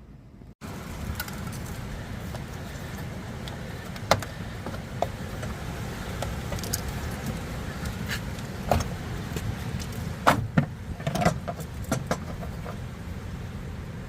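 A steady low rumble with scattered sharp clicks and knocks of hands handling parts while working at a car's headlight.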